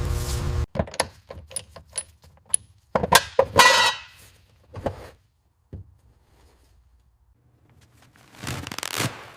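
Small metal objects clinking and clattering: a run of light knocks with brief metallic ringing, busiest about three to four seconds in. A short rushing noise comes near the end.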